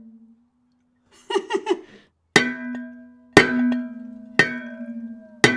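Enamelled cast-iron Le Creuset pot lid struck four times, about a second apart, each hit ringing on like a bell with a strong low hum under higher metallic overtones. The lid is being struck in a sink of dishwater, the way the drummer first found the sound.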